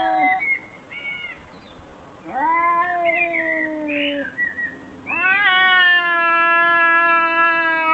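Cat meowing in drawn-out yowls: a short call about a second in, a meow of about two seconds, then a long, steady yowl of nearly four seconds starting about five seconds in.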